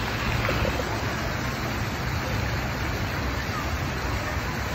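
Steady rush of water from a pool fountain spraying into the water, over a low steady hum.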